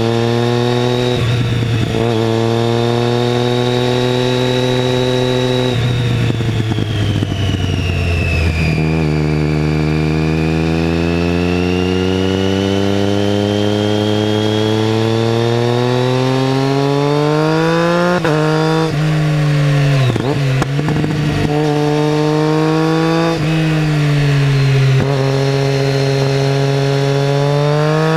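2012 Triumph Street Triple 675R's inline three-cylinder engine through an aftermarket MASS exhaust, heard onboard, pulling up through the revs under throttle. Several quick gear changes with the quickshifter, mostly in the second half, each a sudden drop in pitch before it climbs again.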